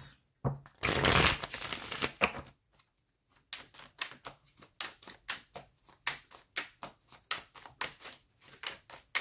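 Tarot cards being shuffled by hand: a longer rustle about a second in, then a quick run of card slaps and flicks, several a second.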